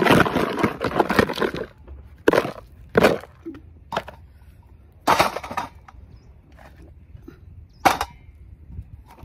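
Dry lumps of multani mitti (fuller's earth clay) being broken apart by hand: a dense crackling crumble at first, then a string of separate sharp snaps about a second apart as pieces crack off.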